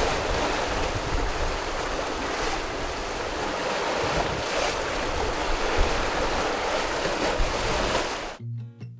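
Rough open sea washing and rushing past a sailing boat under way, with wind blowing on the microphone and rumbling low. Near the end it cuts off abruptly to acoustic guitar music.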